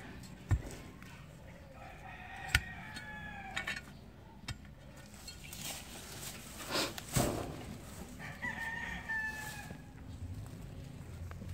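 A rooster crowing twice, one call about two seconds in and another past the eight-second mark, over sharp knocks of a digging tool striking the soil.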